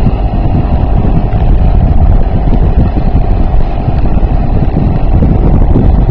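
Sea King 3.5 hp two-stroke outboard motor running steadily at speed, pushing an inflatable raft, with wind buffeting the microphone.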